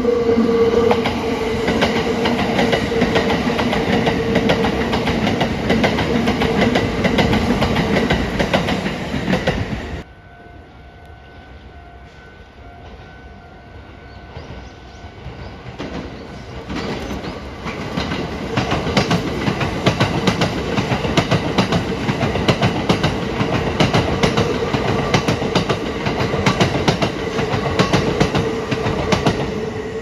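Kintetsu electric trains running past close by: first a 1400 series express with loud wheel clatter and a steady tone over it, then, after a sudden drop about a third of the way in, a limited express approaching and rattling past over the rail joints, building up to full loudness.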